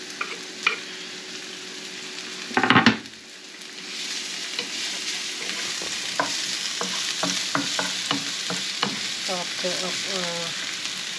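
Onions sizzling in hot oil in a nonstick frying pan, stirred and scraped with a wooden spatula. A short, loud clatter about two and a half seconds in, as chopped greens are scraped off a wooden cutting board into the pan; after that the sizzling grows louder, with clicks of the spatula against the pan.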